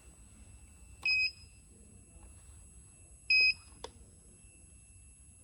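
Two short, high-pitched electronic beeps about two seconds apart from the digital knife cutting machine's controller buzzer, followed by a faint click.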